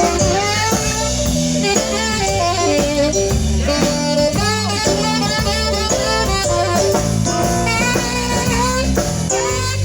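Band playing an instrumental break in a blues song: a bending lead melody over steady bass and drums.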